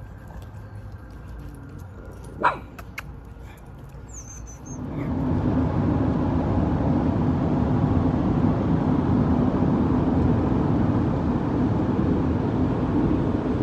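A single sharp dog bark about two and a half seconds in, among small clicks and a brief high chirp; then, from about five seconds in, steady road noise with a low drone inside a car's cabin.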